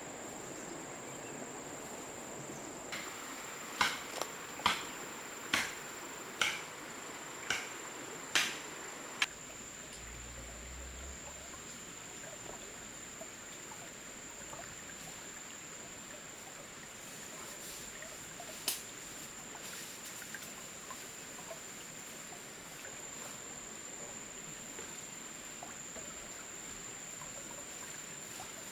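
A steady high-pitched insect drone, crickets or cicadas, over forest ambience. A run of about eight sharp knocks, a little under one a second, comes a few seconds in, and one more single knock comes later.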